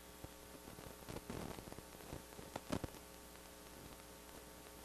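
Faint steady electrical hum on the line, with a few soft clicks, the clearest two close together a little past the middle.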